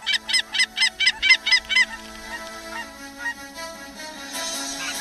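Canada geese honking in a rapid, regular run of calls that stops about two seconds in. Music with long held notes comes in underneath and grows louder near the end.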